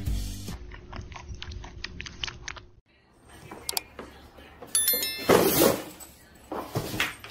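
Cardboard box with a cat inside tumbling down tiled stairs: scattered knocks, a loud scraping thud about halfway through, then a few more bumps.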